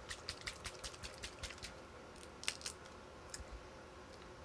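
A plastic paint pot of Citadel Contrast Black Templar being handled: a quick run of light clicks over the first second and a half, then a few separate clicks.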